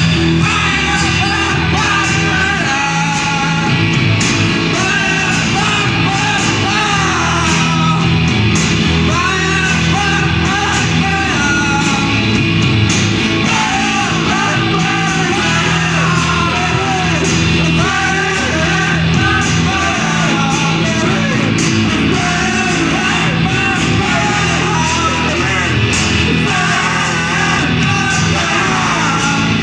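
A pop band playing live: voices singing over electric guitar and bass, with a steady beat throughout.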